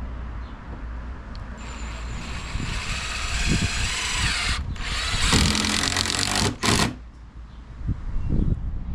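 Power drill running in a burst of about five seconds, pausing twice for an instant, then stopping sharply, over a steady low background rumble.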